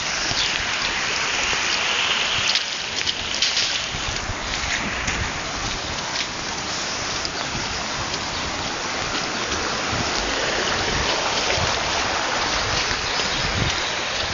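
A fast, muddy river in spate rushing past as a steady wash of water noise, with wind buffeting the microphone in low, uneven thumps.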